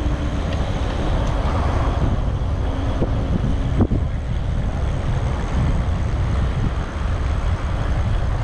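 Steady wind rumble on the action camera's microphone, mixed with tyre and road noise, as a SUPER73 RX e-bike rides along a city street. There is a short knock about four seconds in.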